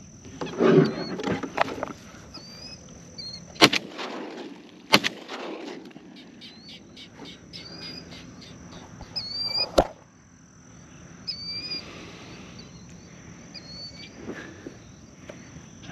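Three shotgun shots: two about a second apart, then a third some five seconds later, each a sharp crack with a short echo. Before them, a rustle of movement in the burlap blind; small birds chirp and a steady high insect buzz runs underneath.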